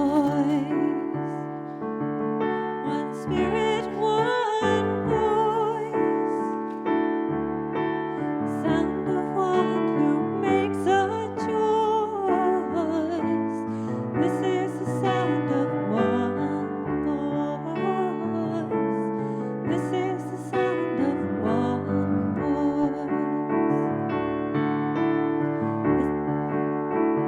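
Keyboard piano playing a slow, gentle passage with sustained chords and a melody line.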